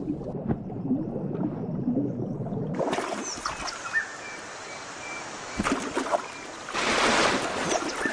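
Muffled underwater gurgling of a river. About three seconds in it changes to water lapping and splashing as hippopotamuses move in the shallows, with a louder stretch of splashing near the end.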